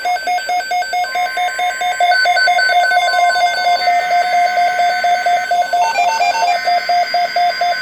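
Weather radio receivers sounding a weather alert: a loud, rapid electronic beeping of about six beeps a second, with several beep pitches layered over one another. A steady high tone joins about a second in.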